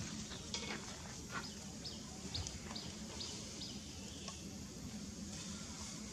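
A run of about six short, high animal chirps, about two a second, starting after about a second and a half, over a steady low outdoor background noise.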